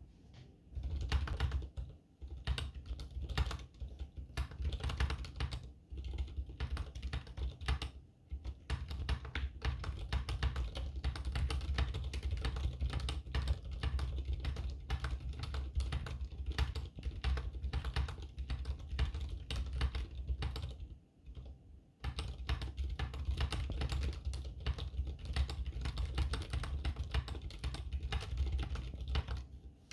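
Typing on a Skyloong GK61 60% mechanical keyboard fitted with Keebwerk Tacit silent switches, keys pressed in fast continuous runs. The typing stops briefly about two seconds in and near eight seconds, and for a longer gap about three quarters of the way through.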